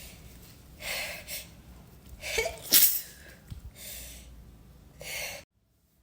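A woman's induced sneeze: gasping in-breaths build up, then one sharp, loud sneeze about three seconds in, followed by a couple of breaths. The sound cuts off abruptly near the end.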